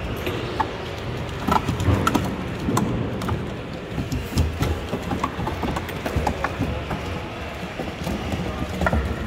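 Unitree quadruped robot walking over a wooden and foam obstacle course, its feet landing in irregular taps and knocks, over a steady murmur of a crowded hall.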